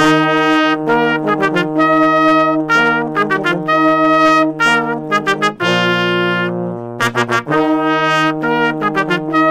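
A brass trio of trumpet and two euphoniums playing: short repeated notes over held low notes, with a held lower chord a little past the middle.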